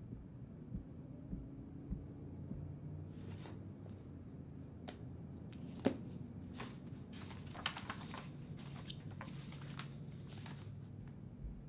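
Notebook pages being opened and leafed through: paper rustling in a run of short rustles, with a few sharp clicks of handling, starting a few seconds in, over a low steady hum.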